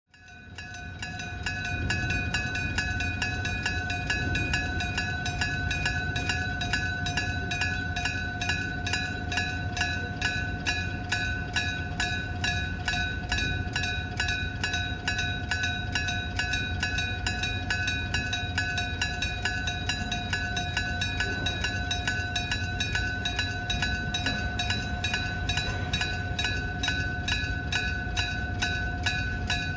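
Level-crossing electric warning bell (電鐘 type) starting up and ringing steadily, its hammer striking the gong about three times a second with a bright metallic ring, warning that a train is approaching.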